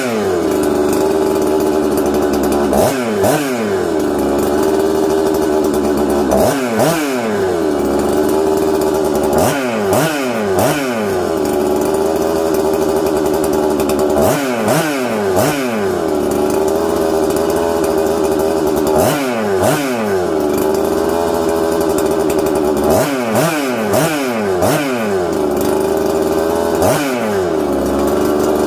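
A freshly ported Husqvarna 266XP chainsaw's two-stroke engine running. It idles and is blipped to high revs about a dozen times, often twice in quick succession, and the revs drop back to idle after each blip. This is its first run after the rebuild, with the carburettor not yet tuned.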